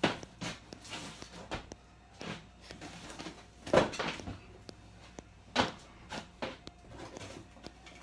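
Scattered knocks, clicks and rustles of things being handled and set down in a kitchen. The loudest knocks come at the start, a little before halfway and about two-thirds in.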